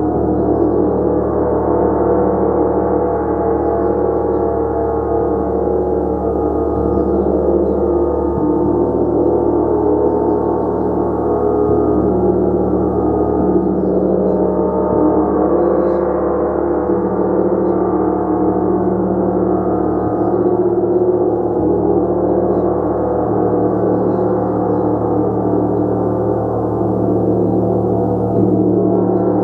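Gong played continuously, a steady, loud wash of many overlapping ringing tones that slowly shift and swell without a break.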